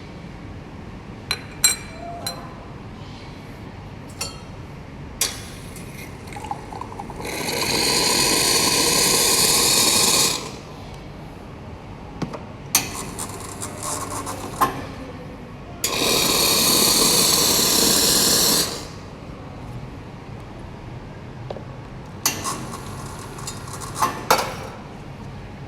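Espresso machine group head flushing water twice, each time a loud rush lasting about three seconds. Sharp metal clicks and knocks of the portafilter and basket come before, between and after the flushes.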